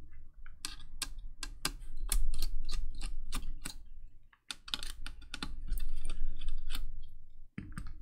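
A screwdriver undoing the screws of a laptop's CPU heatsink: irregular sharp clicks, a few a second, with a short pause about four seconds in, over a low hum.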